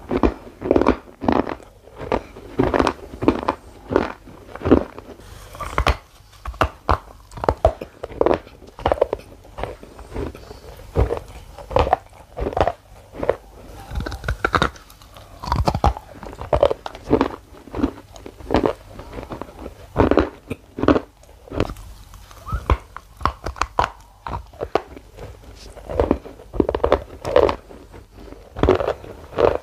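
Close-miked crunching and chewing: repeated bites into a hard, dark grey bar, a sharp crunch roughly every half second to second.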